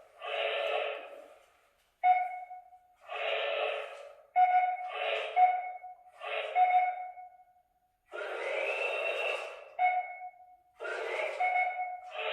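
A toy robot's small built-in speaker plays short electronic sound effects and beeps in bursts about a second long, with gaps between them. A steady beep tone recurs between the bursts.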